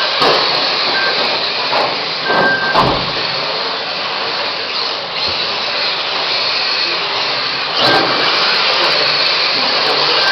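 Electric radio-controlled Mini touring cars racing, a steady whine of small motors and tyre noise, with a few sharp knocks, the strongest about three seconds in.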